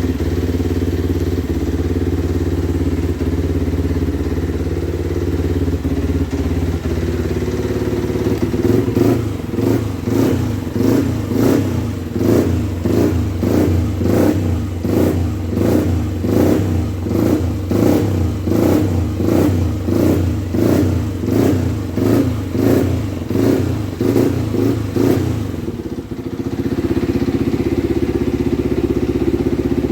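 Freshly rebuilt Yamaha 125 cc engine idling steadily, then revved in quick, evenly repeated throttle blips, more than one a second, for about seventeen seconds, then settling back to a steady idle near the end.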